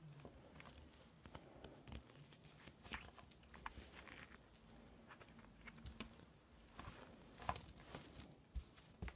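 Faint rustling and light scattered taps of hands pressing and smoothing lace fabric and padded wadding down on a cutting mat.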